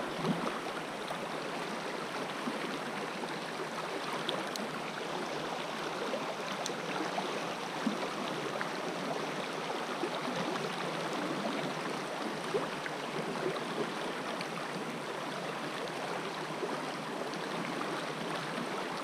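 Shallow creek water running steadily over rocks in a riffle, a constant even rushing, with a few faint ticks scattered through.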